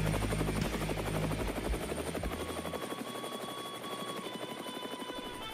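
Helicopter flying low, its rotor blades beating in a rapid, even chop that grows fainter as it moves away. Low bass notes sound under it for the first half and stop about three seconds in.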